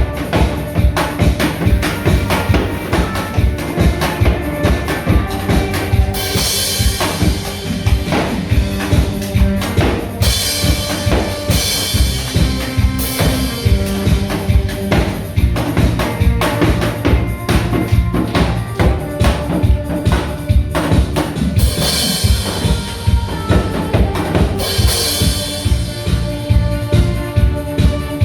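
Upbeat instrumental music with a steady drum-kit beat of about two beats a second under pitched melody instruments.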